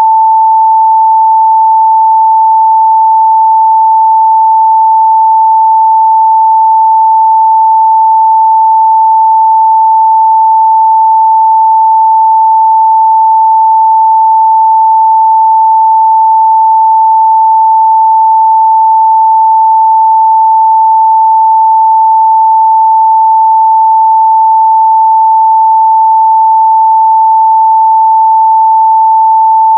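A continuous, steady 885 Hz sine-wave test tone, a pure single pitch in the upper midrange with no change in level or pitch.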